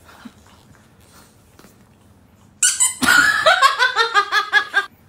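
A small red rubber squeaky toy squeezed over and over. It gives a quick run of squeaks, about four or five a second, that starts about two and a half seconds in and lasts a little over two seconds.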